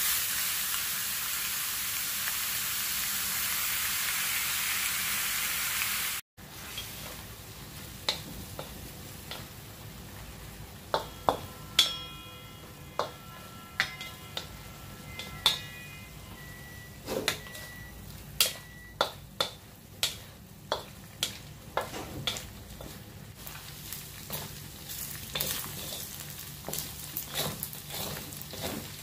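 Cubes of pork belly frying in oil in a metal wok, with a loud steady sizzle for the first six seconds. After a sudden break the sizzle is quieter, and a wooden spatula knocks and scrapes against the wok many times as the meat is stirred.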